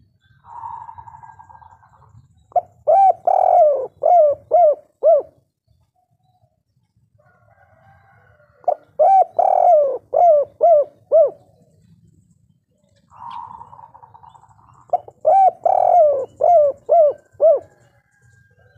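Spotted dove singing its cooing song, three times about six seconds apart. Each phrase is a rounded coo followed by a run of short clipped notes, the 'kuk 3' ending that dove keepers prize. The first and last phrases open with a rough, drawn-out note.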